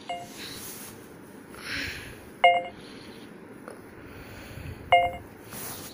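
Smartphone camera app's start/stop-recording chime: three short electronic beeps about two and a half seconds apart, the second and third louder than the first. A soft rustle comes a little before the second beep.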